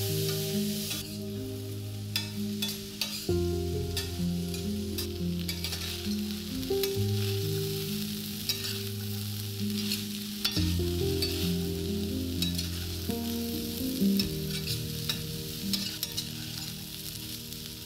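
Peas and green beans sizzling in a stainless steel frying pan while a spatula stirs them, with irregular clicks and scrapes of the spatula against the pan.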